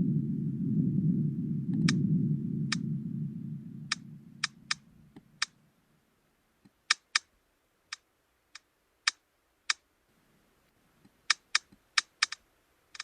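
Computer-generated pulsatile tinnitus simulation: a low rumbling sound fades away over the first five seconds. Sharp clicks come at irregular intervals, some in quick pairs, mimicking the ear clicking of middle ear myoclonus.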